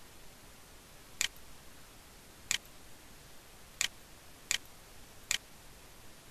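Computer mouse button clicked five times: short sharp single clicks roughly a second apart, over a faint steady hiss.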